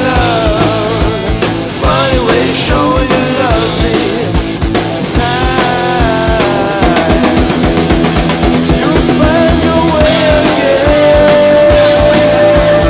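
Early-1980s studio recording of a rock band playing: steady drums and bass under a lead line of bending notes, which settles into one long held note near the end.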